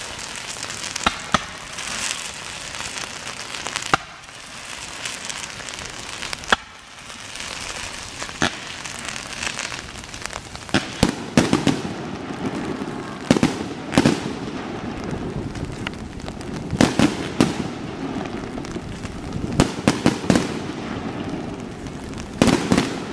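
Aerial fireworks show: shells bursting with sharp bangs at irregular intervals over a continuous crackle. The bangs come thicker and in quick clusters in the second half.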